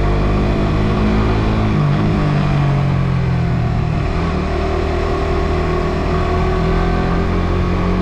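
Suzuki GSX-R150's 147cc single-cylinder engine running under way, its pitch dropping about two seconds in and then holding steady.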